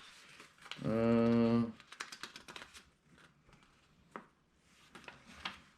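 A drawn-out hummed "hmm" of a man's voice about a second in, followed by scattered light clicks and soft rustles of small parts and packaging being handled.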